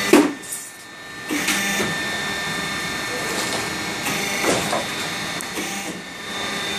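Air filter frame roll forming machine running on trial: a steady mechanical run with a few constant tones in it. There is a sharp knock right at the start and more clanks now and then.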